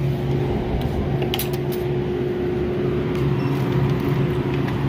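Steady mechanical hum of a store's glass-door drink cooler, with a few light clicks of plastic bottles being handled about a second and a half in.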